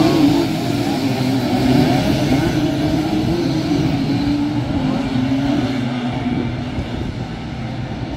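A pack of racing Simson mopeds, single-cylinder two-stroke engines, revving hard together with wavering pitch. The sound slowly fades as the bikes pull away.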